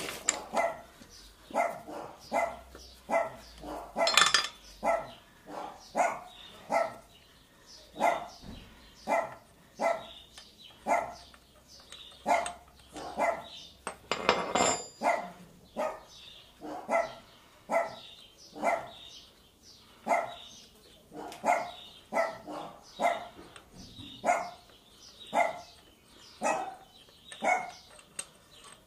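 A dog barking over and over at a steady pace, a little under two barks a second, with two louder, sharper sounds about four and fifteen seconds in.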